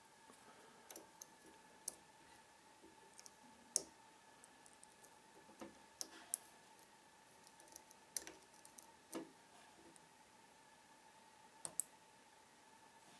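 Faint, irregular clicks and small taps of a lock pick working the pins of a Trioving 5632 padlock under tension during single pin picking. A faint steady whine runs underneath.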